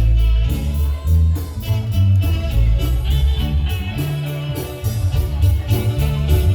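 A marimba band playing an upbeat piece: struck marimba notes over a heavy bass line, with regular percussion strokes keeping the beat.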